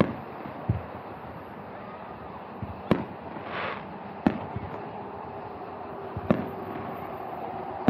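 Distant aerial fireworks bursting: about five sharp booms a second or two apart, the loudest about three and four seconds in.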